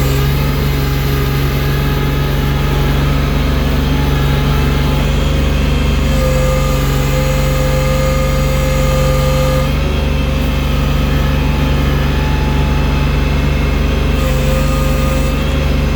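Engine of a snow-clearing machine fitted with a loader bucket, running steadily with a continuous drone, its pitch shifting a little midway.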